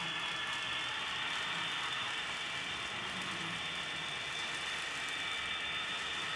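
HO scale model freight trains rolling along the track: a steady whirring hiss of small wheels on rails with faint high steady tones over it.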